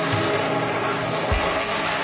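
BMW G82 M4's twin-turbo inline-six running through an Armytrix turboback valvetronic exhaust, with a sharp low thump a little past halfway.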